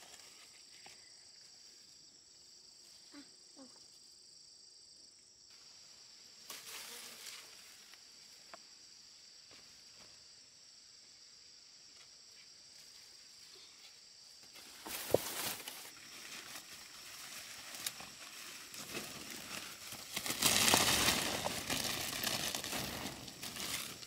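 Insects droning steadily and faintly at a high pitch for the first half. Then a sharp snap, followed by rustling of leaves and plant stems being handled and pushed through, loudest about two-thirds of the way in.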